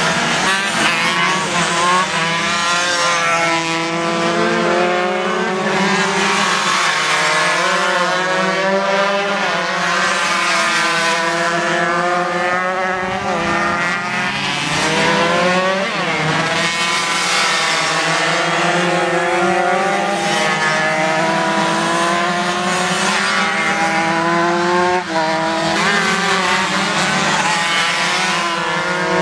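Several 125 cc underbone racing motorcycles at full throttle. Their overlapping engine notes climb in pitch and drop again and again as they pass, shift gear and come off the throttle for corners.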